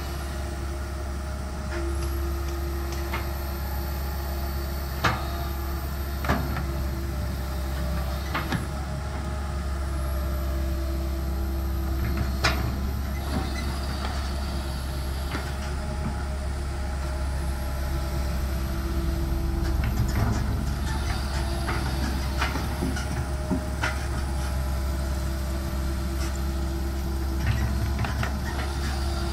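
Tracked excavator's diesel engine running steadily under hydraulic load, with a whine that comes and goes and scattered sharp metal clanks from the bucket and boom while it digs.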